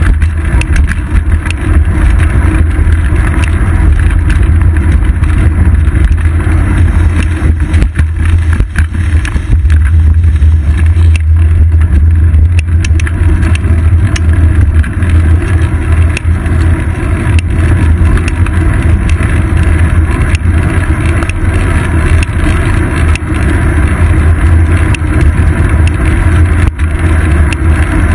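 Loud, steady low rumble of wind and road vibration picked up by a GoPro Hero 2 mounted on a bicycle's seat post while riding on pavement, with scattered small knocks from bumps in the road.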